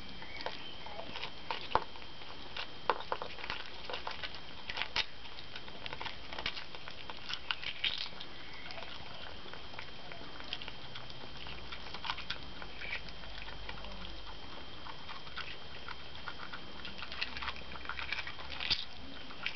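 Skunks cracking and crunching quail eggshells and chewing, with irregular sharp cracks and clicks coming in clusters. A thin steady high tone runs underneath.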